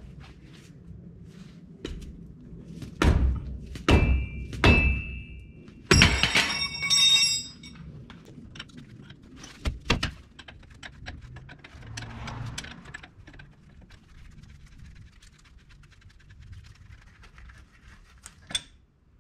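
Hand tools on a truck's front brake caliper bolts: a few heavy knocks about three to seven seconds in, two of them leaving a metallic ring, then a socket ratchet clicking as the bolts are worked loose.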